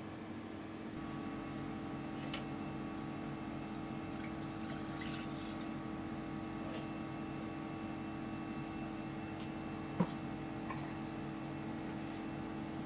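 Milk poured from a stainless-steel jug into a stainless-steel saucepan over a steady hum, with a few light metal clinks and one sharp knock about ten seconds in.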